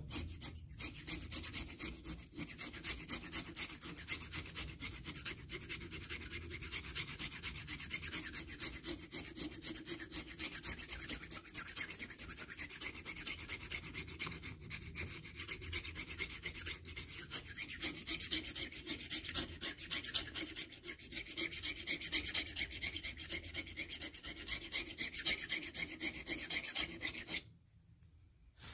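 A small hand tool scraping rust off the iron housing and horseshoe magnet of a Webster oscillating low-tension magneto, in rapid, continuous strokes. The scraping stops abruptly near the end.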